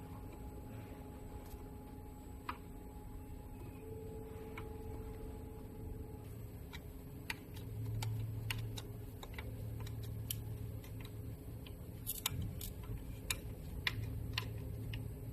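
Scattered light clicks and taps at irregular intervals, as of hand tools and metal parts being handled while the rear shock absorber is fitted, over a low steady hum that swells about halfway through.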